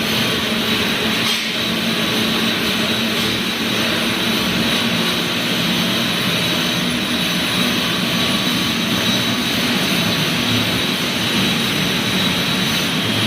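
Wire-production machinery running steadily: a dense, even mechanical noise with a constant high-pitched whine over a low hum.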